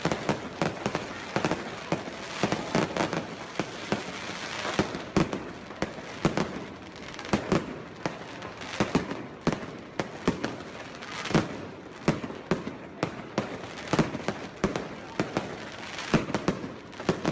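Aerial fireworks display: an uneven, rapid run of shell bangs, several a second, over continuous crackling from bursting stars.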